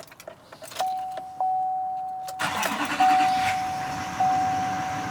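A dashboard warning chime starts about a second in, a single steady tone struck again every second or so. About halfway through, the pickup truck's engine cranks and starts, then idles under the chime.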